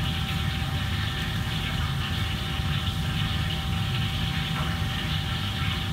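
Steady low drone of commercial kitchen machinery, such as ventilation fans, with a faint steady high tone running through it.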